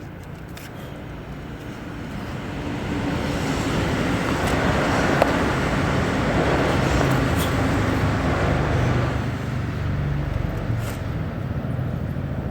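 Road traffic noise: a motor vehicle passing, its tyre and engine noise swelling over several seconds, holding, then easing slightly.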